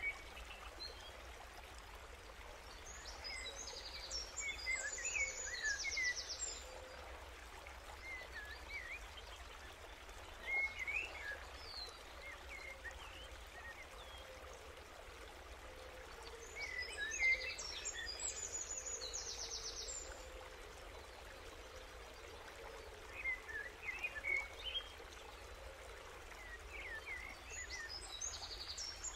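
Birds chirping and singing faintly, with short scattered chirps and a high trilling song phrase that comes back about every twelve seconds.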